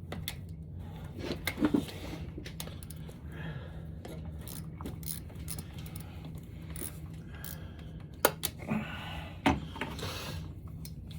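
Metal hand tools clinking and knocking against engine parts as a wrench works a tight bolt in an engine bay. There are scattered light clicks, a cluster of sharper knocks about a second and a half in, and more between about eight and nine and a half seconds. A steady low hum runs underneath.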